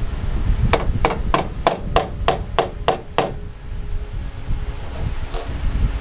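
A hammer striking sheet-metal body panel, about nine quick blows at roughly three a second, each with a short metallic ring, then stopping a little past halfway. The metal of a Mustang door post is being beaten back into shape during rust repair.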